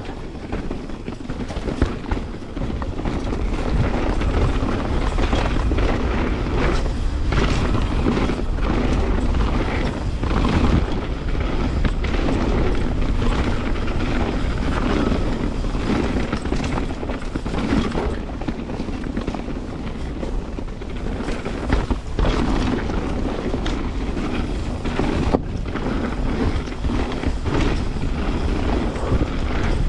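Wind rushing over the microphone and tyre noise from a Canyon Spectral 29 CFR full-suspension mountain bike riding fast down a dirt trail, with frequent short knocks and rattles from the bike over bumps.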